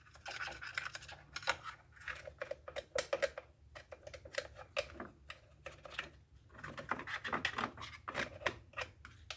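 Irregular scratching and light clicking of a small cleaning tool and brush scraping packed sawdust and debris out of a Husqvarna 450 chainsaw.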